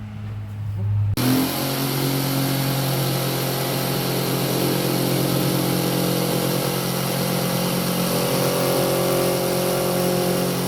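Jeep Wrangler engine running at a steady pitch under a loud, even rushing noise, cutting in abruptly about a second in.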